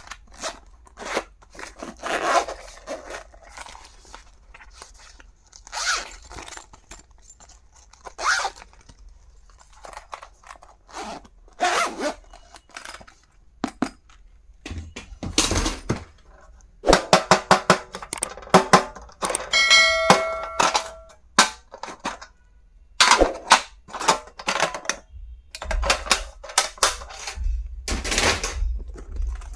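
Hands unpacking and handling stationery items, making a string of clicks, knocks, scrapes and rustles. About two-thirds of the way through there is a short ringing tone.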